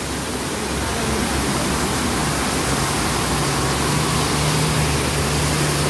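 Floodwater rushing across and off a road, a steady loud wash, with the engine of a goods truck wading through the water coming in as a steady low hum from about halfway in.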